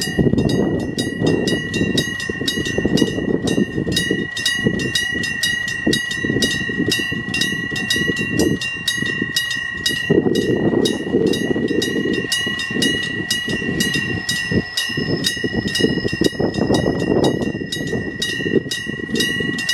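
Japanese level-crossing warning bell ringing steadily in a rapid, even rhythm, over the low rumble of a Hokuriku Railroad Ishikawa Line train on the tracks. The rumble swells and eases several times.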